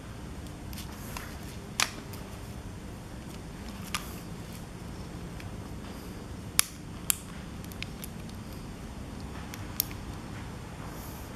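About five short, sharp clicks and taps as the plastic parts of an electric bike conversion kit, its wiring connectors and a handlebar button switch, are handled, over steady low background noise.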